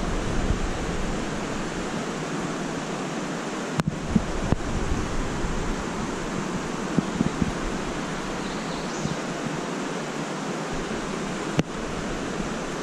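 Steady rush of flowing creek water, with a few brief knocks scattered through it.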